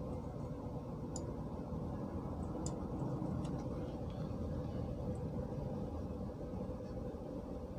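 A few faint clicks from handling a spring-loaded desoldering pump, spread over the first half, above a steady low hum.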